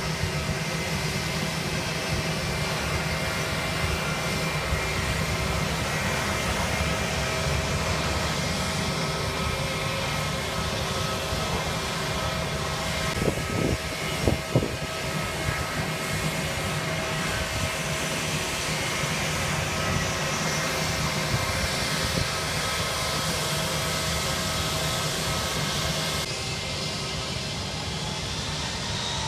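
Jet airliner engines running steadily: a continuous rushing noise with several held whining tones, and a few brief knocks about halfway through.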